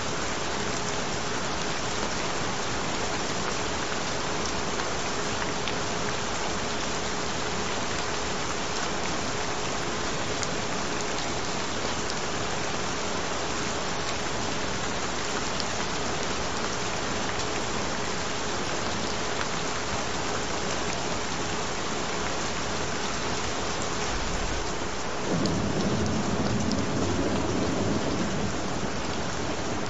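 Steady rain, with a low rumble of thunder rising about 25 seconds in and lasting a few seconds. A faint steady tone runs beneath the rain.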